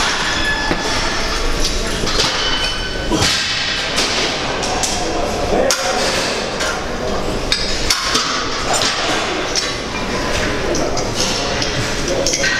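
Metal weights clanking and knocking irregularly on gym equipment over a busy gym background.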